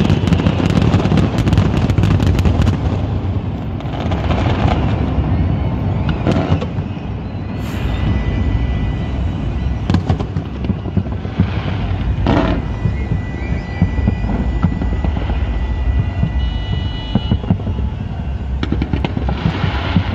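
A large fireworks display going off: a dense barrage of bangs and crackle over a low rumble, thinning after about three seconds to scattered bangs, then thickening again near the end.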